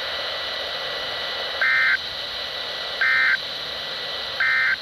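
NOAA Weather Radio broadcast heard through a receiver: three short, identical buzzing bursts of SAME digital data about 1.4 s apart, the end-of-message code that closes the required weekly test, over steady radio hiss.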